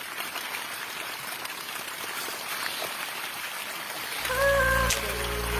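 Steady running, trickling water with small splashes and drips. About four seconds in, background music starts with a deep bass.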